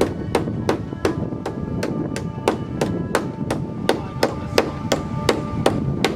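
Background music with a steady percussive beat of about three strikes a second over sustained tones.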